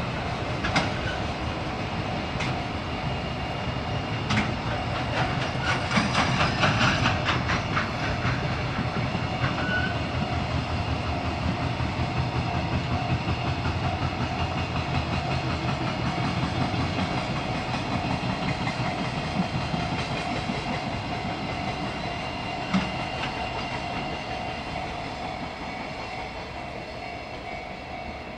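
Freight train rolling past at a level crossing, its wagons' wheels clattering over the rail joints, with a thick run of clicks a few seconds in; the noise slowly fades toward the end as the train draws away.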